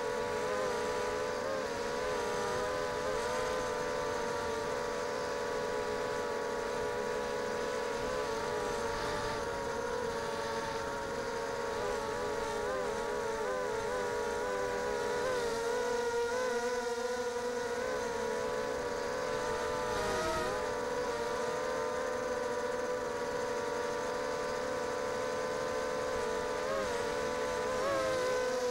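ZMR250 quadcopter's RCTimer 2300kv brushless motors spinning 5030 carbon props, heard from on board: a steady motor whine whose pitch wavers up and down with throttle changes. There is a short drop in pitch a little past the middle, and another a few seconds later.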